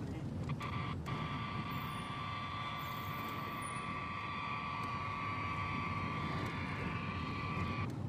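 Open radio channel with no voice: a steady high whine and hiss over a continuous low rumble, with two faint clicks about half a second and a second in. The whine cuts out just before the end while the rumble carries on.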